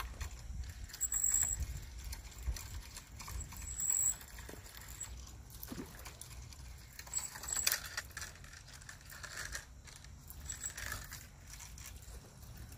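Handling noise from a long fishing rod and spinning reel being recast: scattered clicks and rustles, with a sharper click about two-thirds of the way through. Wind rumbles on the microphone in the first few seconds.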